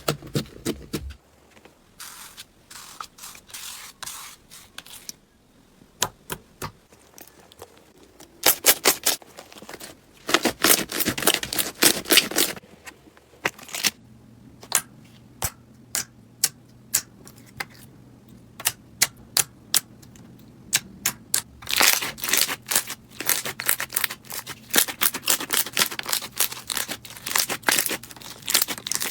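Slime being squeezed and poked by hand, making clusters of sharp crackling clicks and pops with quieter stretches between.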